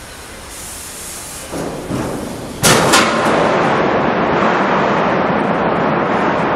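Ship launch: two sharp bangs, then a loud continuous rushing noise as the hull of a large cargo ship begins to slide down the slipway.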